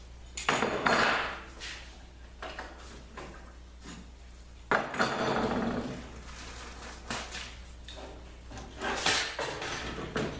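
Handling noise from clamped white ash boards and steel C-clamps on a workbench: two rustling, rubbing noises of about a second each, one about half a second in and one about five seconds in, then a few knocks near the end as the clamped boards are taken in hand.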